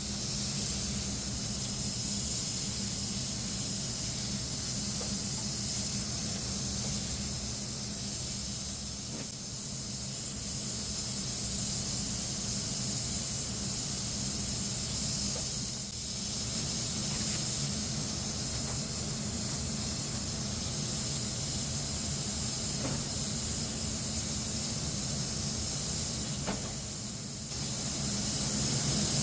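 Spray gun hissing steadily as it lays a coat of Cerakote Elite E-100 Blackout onto rifle barrels. It eases briefly a couple of times and cuts out for a moment near the end, over a steady low hum.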